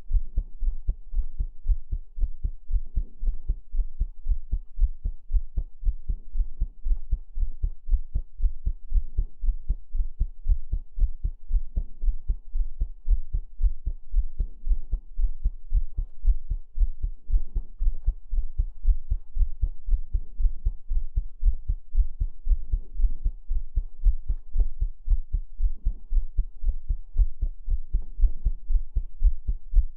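Heartbeat: deep, low thumps in a steady, even rhythm over a low hum.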